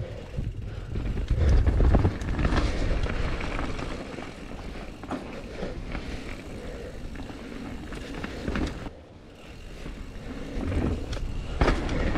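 Full-suspension mountain bike ridden fast down a dirt trail: tyres rumbling over dirt and roots, with the frame and drivetrain rattling and knocking over bumps and wind buffeting the helmet-camera microphone. The rumble is loudest a second or two in, as the bike crosses a wooden plank bridge, and eases briefly near the end.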